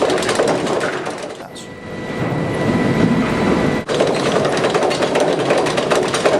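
Sawmill log debarker stripping bark from logs: a dense rattling and crackling of wood against the machine, which breaks off briefly about four seconds in and carries on.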